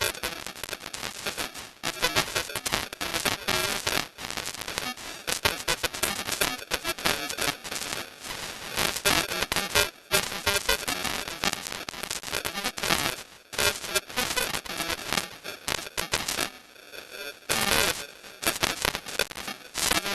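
Garbled broadcast audio: a steady stream of crackling clicks and static, with broken fragments of pitched sound coming through, typical of a faulty news feed's sound.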